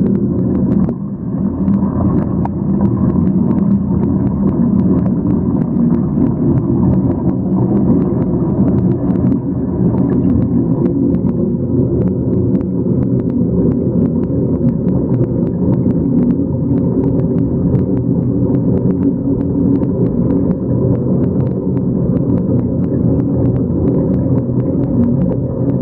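Bathtub water swirling down the drain in a whirlpool: a steady low rumble with frequent small clicks and pops.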